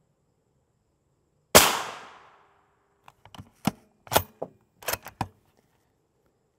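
A single shot from a Savage 110 Tactical bolt-action rifle in .308 firing M80 ball, with a ringing tail that fades over most of a second. About a second and a half later comes a quick series of sharp metallic clacks as the bolt is worked to eject the case and chamber the next round.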